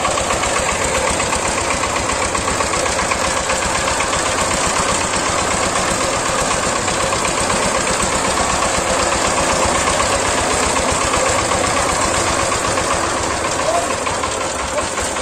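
Horizontal single-cylinder diesel engine of a two-wheeled power tiller running steadily with a fast, even knocking chug while it pulls a loaded trolley.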